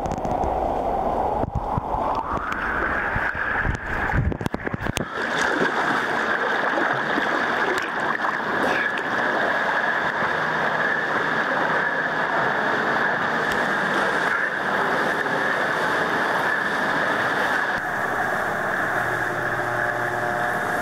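Pool water splashing and churning from a swimmer's freestyle strokes, picked up by a waterproof camera's microphone right at the water's surface as a steady noise.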